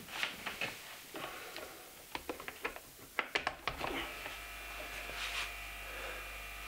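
Clicks and handling noise as a plug goes into a wall socket. About four seconds in, an aquarium air compressor rated at 60 litres per minute starts up and runs with a steady electric hum. A sharp knock comes near the end.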